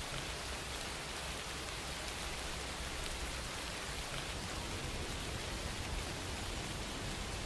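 Steady rain falling, an even hiss with a dense patter of small drops.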